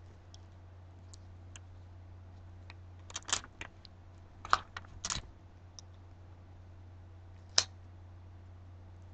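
Gloved hands handling a wine glass: a cluster of clicks and short rustles about three to five seconds in, and one sharp tap near the end, over a steady low hum.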